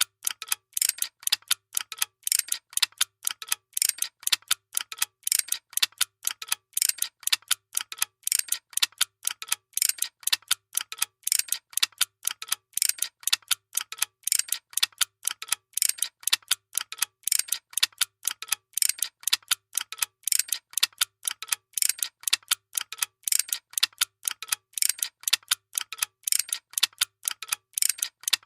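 A workshop machine clacking steadily and rapidly, about five sharp mechanical clicks a second, over a faint low hum.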